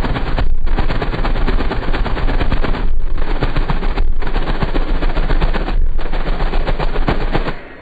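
Clear plastic held in the port of a ported subwoofer enclosure, flapping and crackling in a rapid, gunfire-like rattle in the blast of air driven out by four 18-inch subwoofers, with heavy bass underneath. The rattle breaks off briefly about four times.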